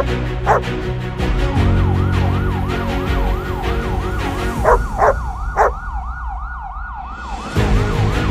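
Emergency vehicle siren in a fast yelp, its pitch sweeping up over and over, about three times a second, over background music. A few short dog barks come in near the middle.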